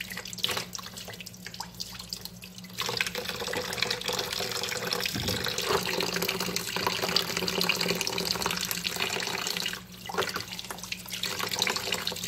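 Tap water running into a plastic basin in a sink, with hands moving through the water. The flow gets louder about three seconds in and dips for a moment about ten seconds in.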